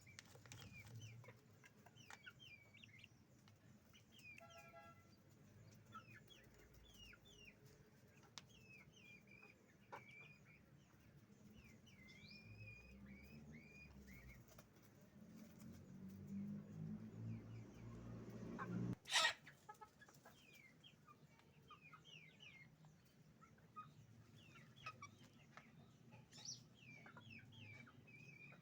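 A flock of chickens clucking and calling, many short high calls overlapping without pause, with lower clucking growing louder for a few seconds before a single sharp knock about two-thirds of the way through, the loudest sound.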